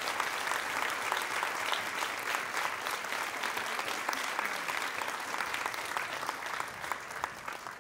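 Audience applauding, dense clapping that thins out and fades near the end.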